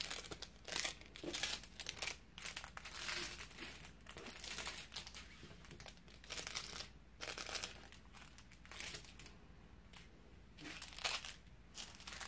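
Small plastic bags of rhinestones crinkling in irregular rustles as they are picked up and rearranged by hand, with a quieter stretch about nine to ten seconds in.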